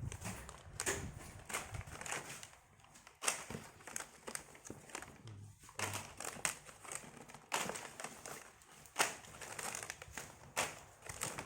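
Plastic packaging crinkling and rustling as it is handled and opened, with a string of irregular crackles.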